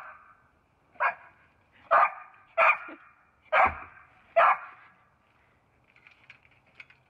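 A dog barking six times, short loud barks about one a second, then going quiet apart from faint small sounds near the end; the barks are an excited greeting for a person arriving at the gate.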